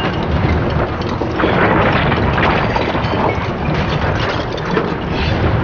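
Loud, continuous rumbling and crackling noise, swelling about a second and a half in.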